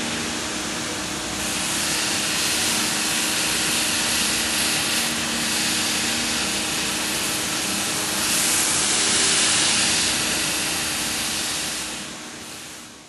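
Knife-workshop machinery running: a steady hiss with a low hum under it, louder for a few seconds twice, then fading out near the end.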